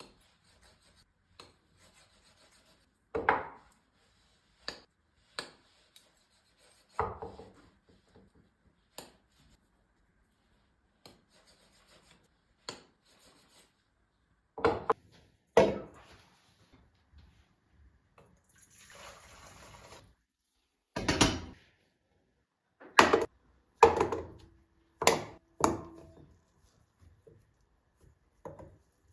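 Kitchen handling sounds: a series of separate knocks and thuds of dishes and utensils being set down and moved, with fainter taps between them and a brief soft hiss about nineteen seconds in.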